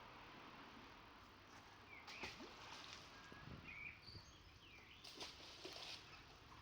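Near silence: faint outdoor background hiss with a few soft taps and a few brief, faint high chirps.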